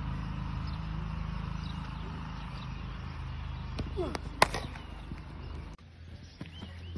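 Cricket net practice: steady low background noise with faint voices, and one sharp crack about four and a half seconds in, a cricket bat striking the ball. The sound cuts off abruptly near the end and a few faint knocks follow.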